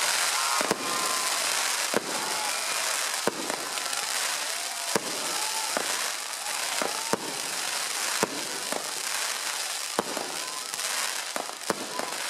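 Fireworks set piece and spark fountains burning: a continuous crackling hiss of sparks, broken by frequent sharp, irregular bangs.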